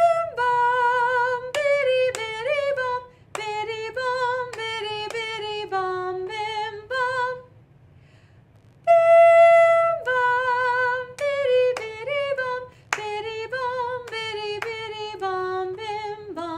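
A woman singing unaccompanied on nonsense syllables ("bim bum biddy biddy bum"), a stepping tune in two phrases with a short pause between them. A few sharp clicks fall among the notes.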